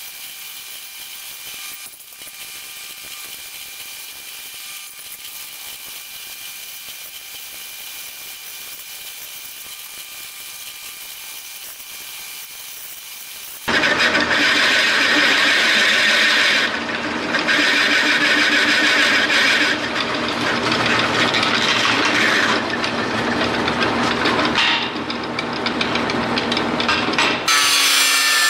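Drill press boring through a steel plate: a steady whir of the running drill for the first half, then about halfway through much louder grinding noise of the bit cutting the steel, dipping briefly a few times. In the last second an angle grinder cutting steel takes over.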